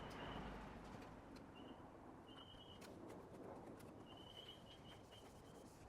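Near silence, with faint high bird calls three times, the last one long and steady, and a few faint clicks.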